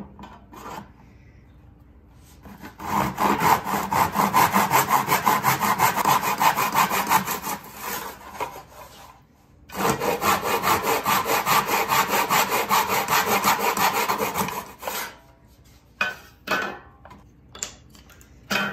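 Backsaw cutting through a strip of wooden frame moulding held in a plastic miter box: two runs of quick, even back-and-forth strokes with a short pause between them. A few light knocks follow near the end.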